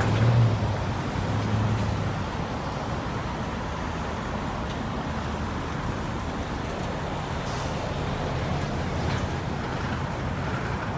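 Diesel locomotive (a Union Pacific GP39-2, turbocharged V12 two-stroke) moving off: its engine drone fades out within the first two seconds. A steady low rumbling noise follows.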